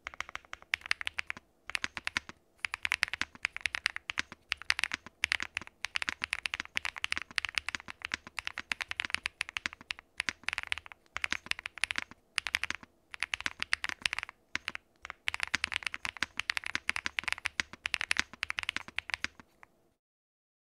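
Rapid typing on a QwertyKeys QK100 gasket-mount mechanical keyboard with lubed, filmed Punkshoo x Gateron Root Beer Float switches on a POM plate: a dense stream of key clacks in runs, broken by short pauses, stopping about twenty seconds in.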